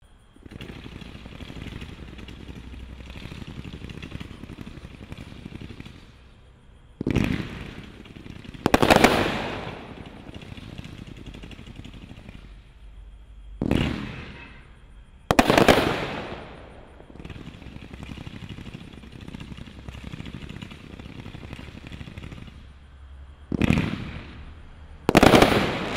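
A 213-shot, 500-gram zipper fireworks cake firing a fast, continuous stream of small shots as its rows of stars go up. Louder bursts stand out several times, two of them close together near the end.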